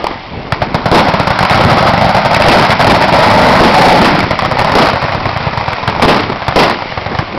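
Machine guns firing automatic: a dense, continuous barrage of overlapping shots from about a second in, thinning after about four and a half seconds to scattered bursts and single shots.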